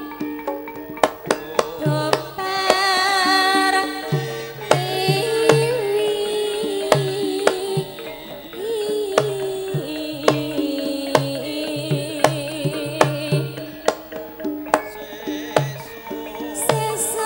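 Javanese gamelan music: a kendang hand drum playing a lively pattern of sharp slaps and repeated short low strokes over sustained gamelan tones, with a wavering sung melody.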